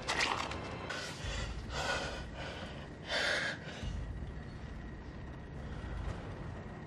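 A person gasping and breathing heavily, about four sharp breaths in the first few seconds, over a low rumble.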